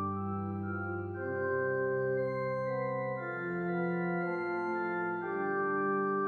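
Organ music in slow, held chords that move to a new chord every second or two.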